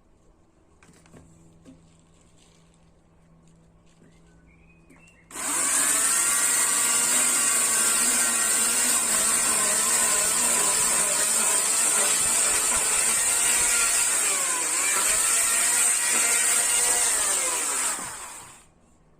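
Chainsaw starting suddenly about five seconds in and running steadily while cutting wood, its pitch dipping briefly under load near the middle. It winds down with falling pitch near the end.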